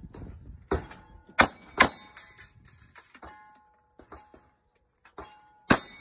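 Gunshots at close range, each followed by the clang and short ring of a hit steel target: three shots in quick succession in the first two seconds, a pause, then two more near the end.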